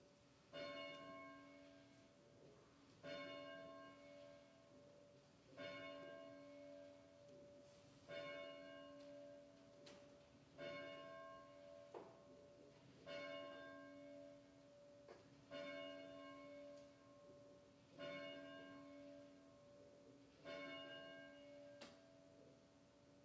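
A single church bell tolling slowly and faintly: nine strokes about two and a half seconds apart, each ringing on and dying away before the next.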